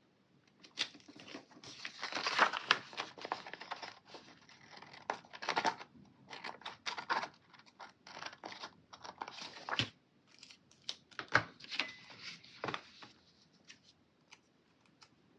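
Stickers being peeled off a paper sticker sheet, with the sheet rustling and crinkling in irregular scratchy bursts and a few sharp clicks, dying down near the end.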